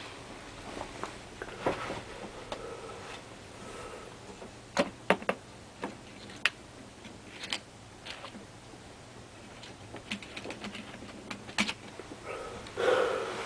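Irregular sharp clicks and taps, scattered and uneven like typing, over a low steady background, with a louder rustling noise near the end.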